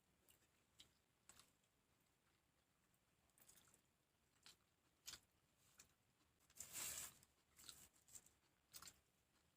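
Faint eating sounds: scattered soft clicks and chewing, with a louder crunchy crackle lasting about half a second near seven seconds in.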